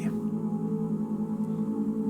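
Background ambient music: a steady low drone of held tones.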